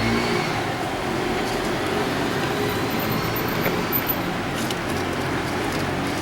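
A car engine running steadily at idle, with a few light clicks.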